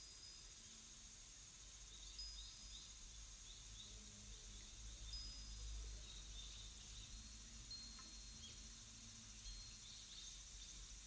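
Faint nature-sound background: scattered short, high chirps and whistles over a steady hiss.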